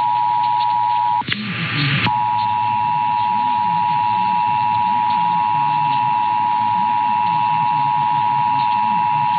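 Emergency Alert System two-tone attention signal, two steady pitches sounding together, received over broadcast radio. About a second in it drops out for just under a second into a rush of hiss, then resumes.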